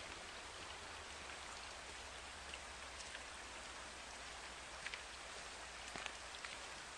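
Steady, even hiss of water in a wet forest, with a few faint ticks about five to six seconds in.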